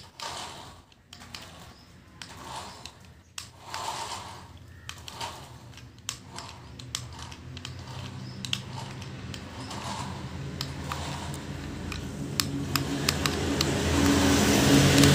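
Small electric motors and plastic gears of toy remote-control cars whirring and clicking, with scattered sharp clicks. From about twelve seconds in, a steady low hum builds and is loudest near the end.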